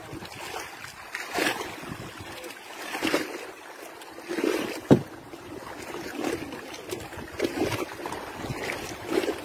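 Choppy sea water sloshing and splashing against a small boat's hull in irregular surges, with wind buffeting the microphone. A single sharp knock comes about five seconds in.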